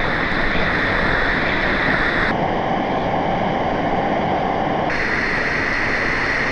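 Steady rush of a tiered waterfall pouring into a swimming pool. Its tone changes abruptly about two and five seconds in.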